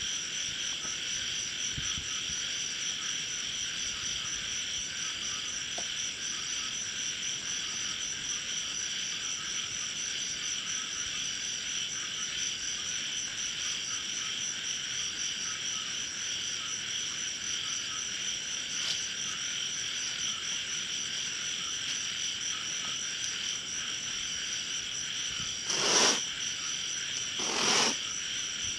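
Steady night chorus of insects and frogs, with a faint regular pulsing in the high trill. Near the end two short, louder calls stand out over it.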